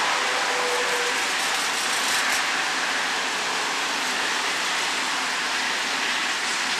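Steady, even rushing noise of a train in motion, mixed with rain.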